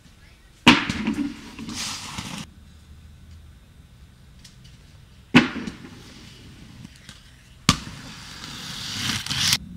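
Inline skates clacking hard onto concrete three times. After the first and last impacts comes a rush of skate wheels rolling and scraping over the ground, and the last rush swells louder before cutting off abruptly near the end.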